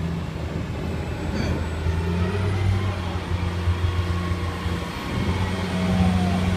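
Motor vehicle engines running in jammed traffic, a steady low engine drone.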